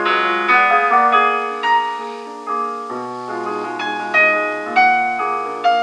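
Solo piano playing a classical passage written as a dialogue between two voices, a phrase heard as a question; a lower voice comes in about halfway through.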